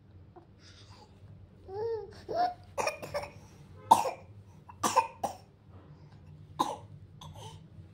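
A baby gives a short cooing call that rises and falls in pitch. Then comes a string of about six short, sharp coughs spread over the next few seconds.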